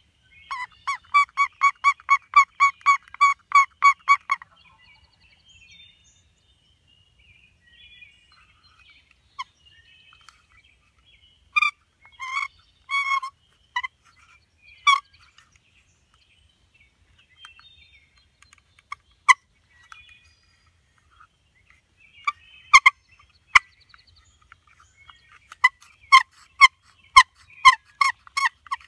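A run of about fourteen evenly paced turkey yelps near the start, then scattered clucks and short, sharp cutting notes later on, over faint songbird chirping.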